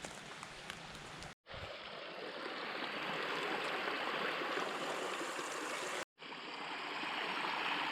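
Rocky mountain stream flowing: a steady rush of water. The sound cuts out completely for a moment twice, and the rush is louder after the first break.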